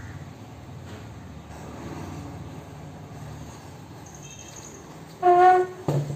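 Low steady wind rumble; about five seconds in a loud horn-like tone sounds once for about half a second, followed by a short knock.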